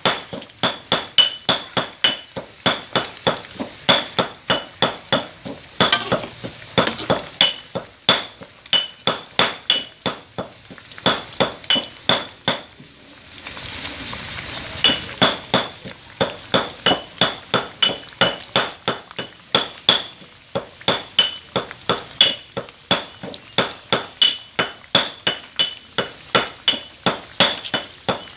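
Metal spatula clinking and scraping against a steel wok, about two to three ringing strikes a second, as pieces of sun-dried pork are stirred in deep frying oil. Midway the strikes stop for a couple of seconds, leaving the hiss of the sizzling oil.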